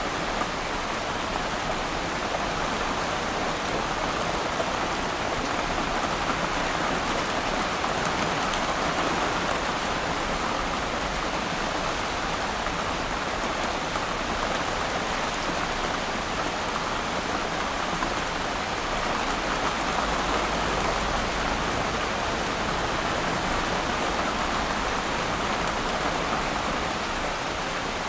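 Steady rain falling on water, an even hiss of drops, with a low rumble of distant thunder swelling in the second half.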